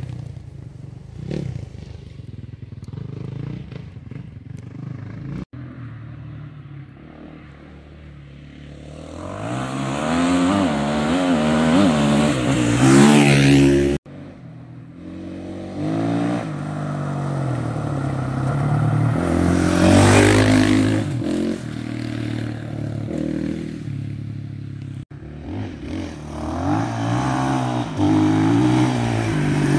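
Off-road rally motorcycles passing one at a time on a gravel track. Each engine grows louder and revs up and down through the gears as it nears, then fades away. There are three loud passes, in separate short clips.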